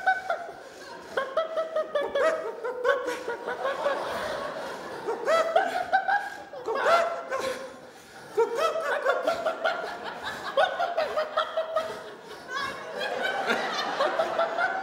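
Laughter: high-pitched bursts of laughing that rise and break off, coming again every second or two.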